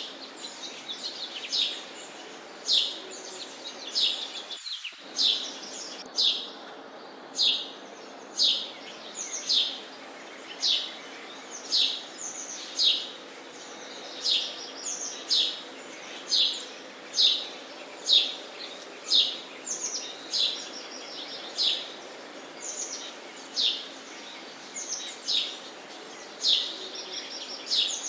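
Sparrows chirping: short, high chirps that slur downward, repeated about once a second over a steady background hiss.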